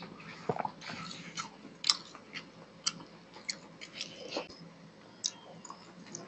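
Close-miked eating by hand: fingers mixing rice and fish curry on a metal plate, and chewing with wet mouth clicks and lip smacks, irregular and sharp.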